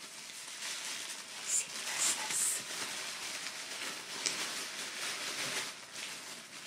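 Tissue paper rustling and crinkling as it is handled, with a few sharper crackles between about one and a half and two and a half seconds in.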